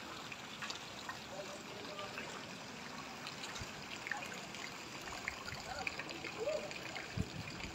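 Floodwater trickling and lapping in a flooded street, a steady low wash of water, with faint distant voices and a couple of low thumps near the end.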